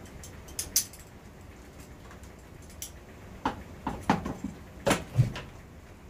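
Clicks and knocks of plastic maple sap taps and tubing fittings being handled and pressed together: a few sharp clicks, then a quick cluster of knocks over about two seconds, one with a dull thump.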